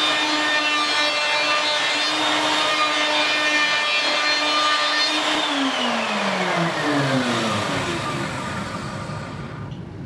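Router table's router running at a steady high whine while a counter cut is made on a drum hoop, then switched off about five seconds in and spinning down, its pitch falling away over the next few seconds.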